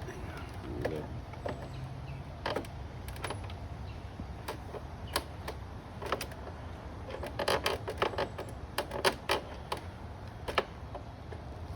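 Hand tools clicking and tapping against metal fittings while a fastener is worked on, in scattered single clicks with a quicker run of clicks about seven to nine seconds in, over a steady low hum.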